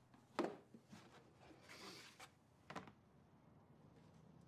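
A cardboard box set down on a wooden coffee table with a thump, then its lid lifted off with a soft papery rustle and set down with a lighter knock.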